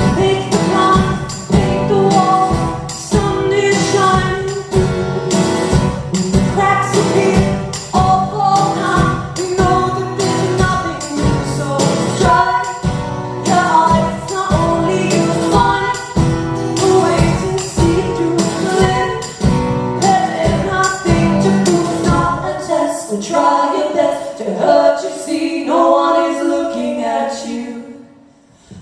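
Live acoustic music: rhythmically strummed acoustic guitar with wordless sung vocal harmonies, breaking off briefly near the end before starting again.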